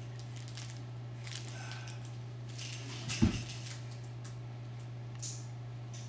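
A baby moving about on a rug: faint rustling, then one short thump about three seconds in as she rolls onto her back. A steady low electrical hum runs underneath.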